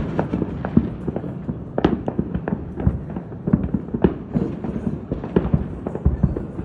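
Fireworks going off in a rapid, irregular string of pops and bangs, several a second, with a few louder bangs standing out.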